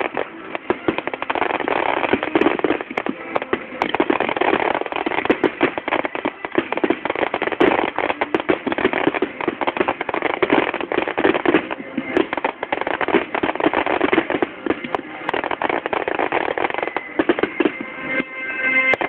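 Fireworks display: shells bursting in rapid succession, a dense, continuous run of sharp bangs and crackles.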